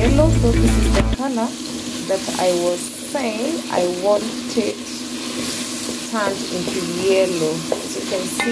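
Chopped tomatoes and onions sizzling in oil in an enamel pot, stirred and scraped with a spatula. A wavering voice-like sound runs faintly in the background, and a low rumble stops about a second in.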